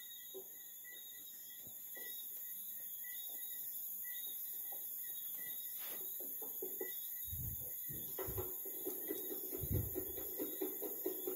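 Pen scratching on notebook paper in quick short strokes as small triangles are coloured in, with a few soft thumps of the hand against the notebook in the second half.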